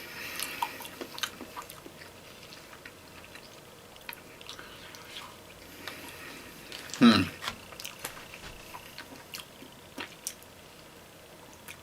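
A person chewing a mouthful of rice and beans, with small clicks and smacks. About seven seconds in there is a short hum that falls in pitch.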